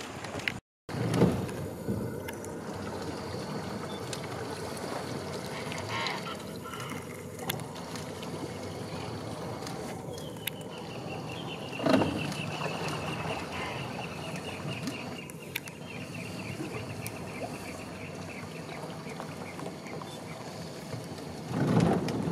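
Steady low rumble and hiss of a boat on the river, with a bird's rapid, evenly pulsed trill, falling slightly in pitch, for about five seconds in the middle. A few low thumps, the loudest about twelve seconds in, and a brief dropout near the start.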